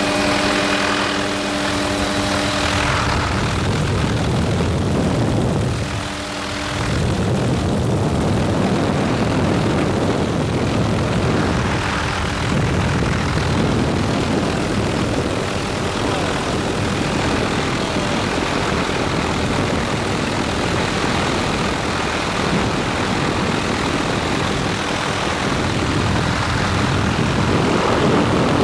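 Helicopter engine and rotor noise heard from inside the cabin in flight: a loud, steady rush.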